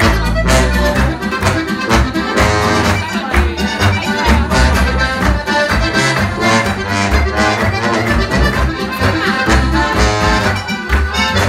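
A polka played live by an Alpine folk band, led by a Steirische harmonika (diatonic button accordion), with a bass line keeping a steady beat.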